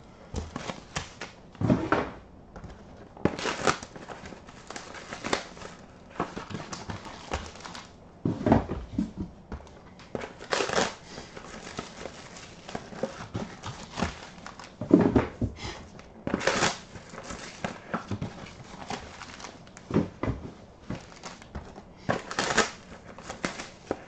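Clear plastic shrink wrap crinkling and tearing as it is pulled off a sealed trading-card box by hand, in irregular crackles and rustles with a louder tear every few seconds.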